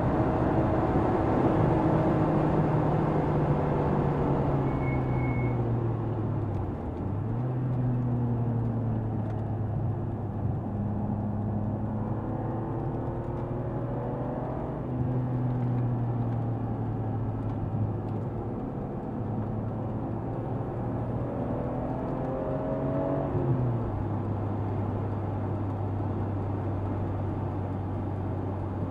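BMW M3 E46's straight-six engine running at speed, its note rising and falling with throttle and gear changes: a sharp dip about seven seconds in, then climbing again, and a drop near the end to a steadier, lower note. Road and wind noise run underneath.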